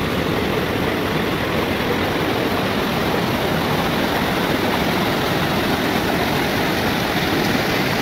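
A small waterfall running over granite rock steps: a steady, loud rush of water cascading into a pool.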